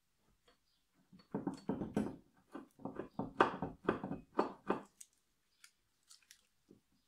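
Gloved hands twisting a driveshaft's greased splined end to line up its splines: about four seconds of crunching, rubbing handling noise starting about a second in, then a few faint clicks.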